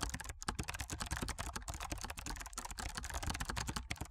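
Fast typing on a computer keyboard: a quick, uneven run of key clicks.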